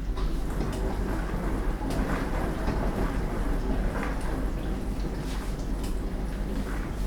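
Household dishwasher running mid-cycle: water spraying and splashing inside the tub over a steady low motor hum, with scattered light clicks and spatters.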